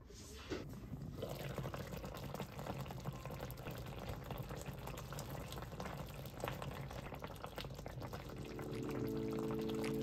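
Red sauce of spicy braised potatoes simmering in a frying pan, bubbling with many small pops. Music comes in near the end.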